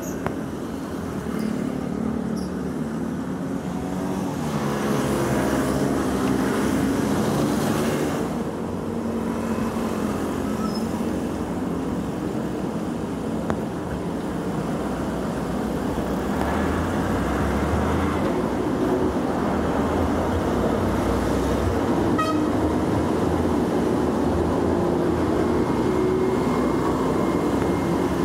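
Steady road traffic with vehicle engines passing, over the wash of rain and muddy floodwater draining into a freshly unclogged street drain.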